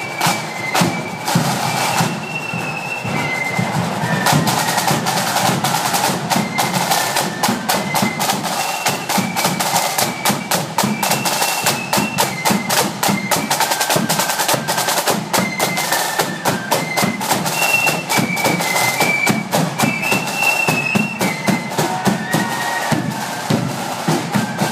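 Marching flute band playing a tune: flutes carry a high melody over rattling snare drums and a steady bass drum beat.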